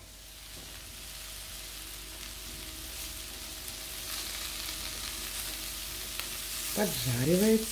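Diced eggplant and onion frying in oil in a frying pan: a steady sizzle that slowly grows louder, with a wooden spatula stirring through the pieces.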